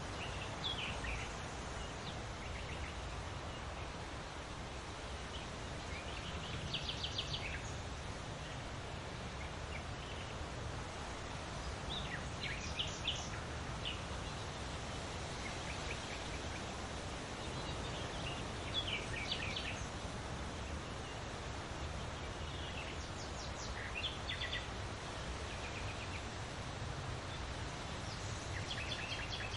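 Wind rustling through large leaves as a steady hiss, with birds giving short chirping calls every few seconds.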